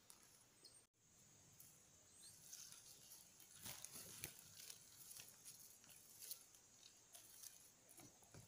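Near silence: faint outdoor ambience of scattered small ticks and rustles, with a few faint, short, high bird chirps.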